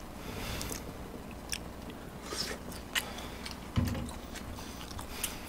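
Close-miked chewing and mouth sounds of a man eating pork belly from kimchi stew: wet smacks and scattered clicks, with a low thump about four seconds in.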